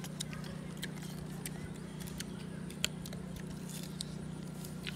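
Green star fruit being picked from a plastic basket, bitten and chewed: scattered sharp clicks and crunches over a steady low hum.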